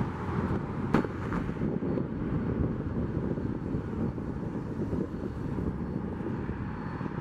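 Steady low rumble of road traffic mixed with the diesel engine of an EMD GP40-2 locomotive, with one sharp click about a second in.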